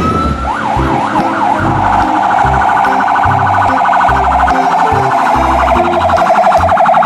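Electronic fire-engine siren: a brief steady tone, then about four quick wails, then a fast warbling yelp, over background music with a steady beat.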